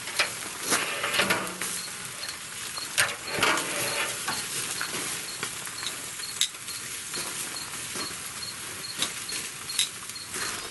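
Chicken thighs sizzling on the hot grate of a Pit Barrel Cooker used as an open grill, with sharp clicks and scrapes of metal tongs against the grate as the pieces are turned.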